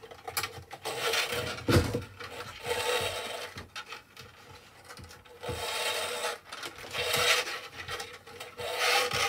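Hands working elastic bungee cord through the holes of a 3D-printed plastic body: irregular bursts of rubbing and scraping of cord and fingers against the plastic, with a thump about two seconds in.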